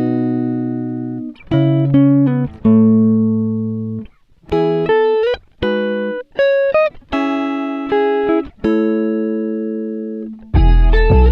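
Background music: plucked guitar notes and chords, each ringing out and fading, with short breaks between phrases; about ten and a half seconds in a fuller, louder part with deep bass notes comes in.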